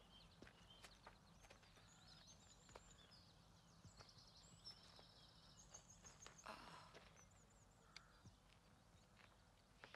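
Quiet forest ambience, near silence: faint songbird chirps, a few soft clicks and steps on gravel, and a brief rustle about six and a half seconds in.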